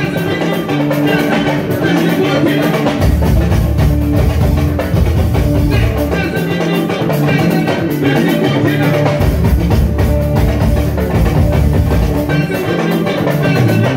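Loud live band music in the Senegalese mbalax style, with drum kit, percussion, bass and guitar, and a male singer's voice over the band.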